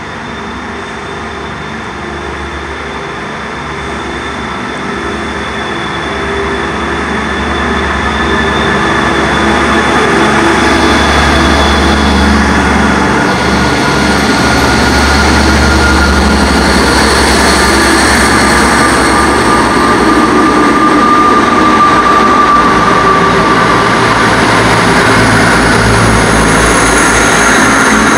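Two coupled Class 159 diesel multiple units pulling out and passing close by, their underfloor Cummins diesel engines working under power over the sound of wheels on rails. The sound grows louder over the first ten seconds or so as the cars come alongside, then holds loud as they go past.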